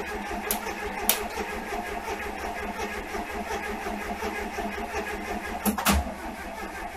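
VW Beetle 1303's air-cooled flat-four being cranked over by its starter motor in a steady, even rhythm without catching: the engine will not start. A few sharp clicks come through, two of them close together near the end.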